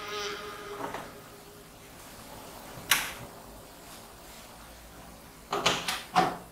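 Background music fading out about a second in, then a single sharp click near three seconds and two or three sharp clicks and knocks close together near the end, over quiet room tone.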